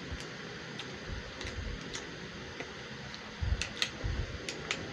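Faint scattered clicks and soft knocks from eating and handling paper food boxes, sauce tubs and cups at a table, over quiet room noise; the knocks come mostly in the last second and a half.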